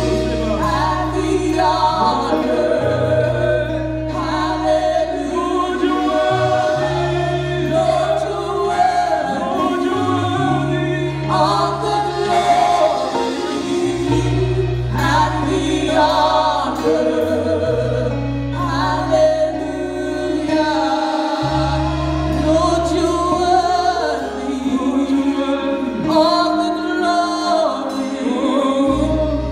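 Gospel worship music: singing over long held low chords, with the bass note changing every two to three seconds.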